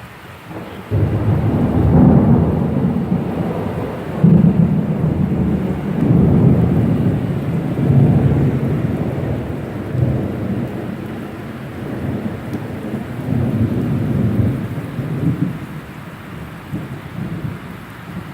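Thunder breaking suddenly about a second in and rolling on in several swelling waves of low rumble, dying down after about fifteen seconds, over steady rain.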